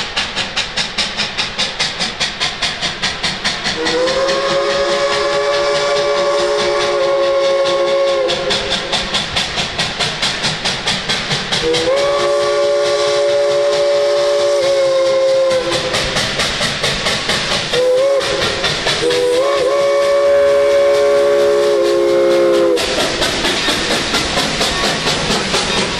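Steam locomotive working steadily with rapid, even exhaust chuffs while its chime whistle sounds long, long, short, long: the standard grade-crossing signal.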